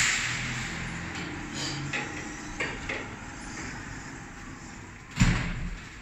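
Large passenger lift with stainless-steel sliding doors, running with a low hum and a few light clicks, then a loud thump about five seconds in.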